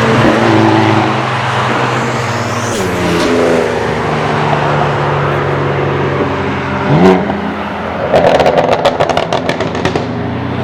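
Car engines on the racetrack, their pitch falling and jumping as gears change, with a quick rev blip about seven seconds in. It is followed by a rapid string of exhaust pops and crackles lasting about two seconds, typical of a downshift off the throttle.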